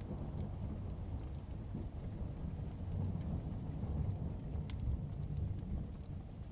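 Steady rain with a low rumble of distant thunder that swells in the middle, and scattered sharp ticks of raindrops or fire crackles.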